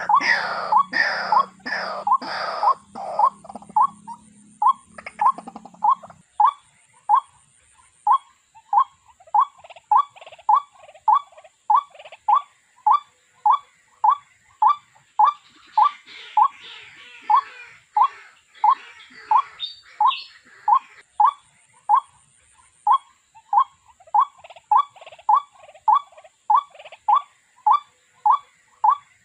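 A bird's call: one short note repeated steadily about twice a second, with a low hum under it for the first six seconds.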